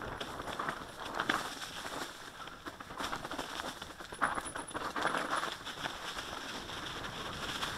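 Tyres crunching and crackling over dry leaves and stones on a fast downhill forest trail, with rattling and wind noise on the microphone.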